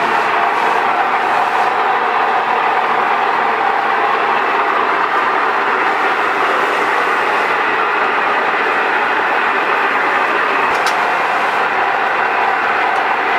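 A steady, loud mechanical running noise, even and unbroken, like a machine motor running. A single sharp click about eleven seconds in.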